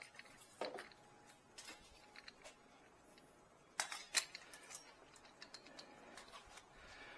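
Scattered light clicks and taps from a ring-light phone stand being handled and moved, with two sharper clicks near the middle.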